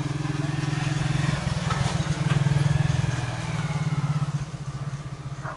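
A small engine running steadily with an even low pulsing hum, growing louder about two seconds in and easing off after about four seconds.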